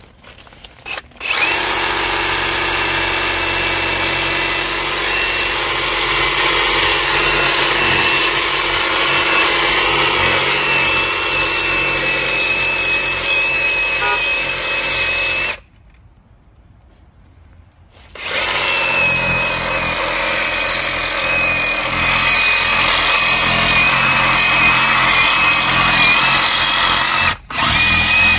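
Handheld power saw with an oscillating blade, running steadily with a high whine as it cuts through the plastic water supply pipe to remove a cracked shut-off valve. It cuts in two long runs separated by a pause of about two and a half seconds, then a short burst near the end.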